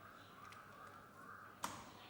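Faint background noise with one sharp knock about one and a half seconds in, dying away quickly.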